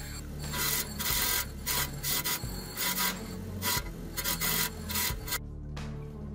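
Small lapidary trim saw cutting into a piece of Oregon fire opal in short rasping passes, about two a second, stopping abruptly about five seconds in. Background music runs underneath.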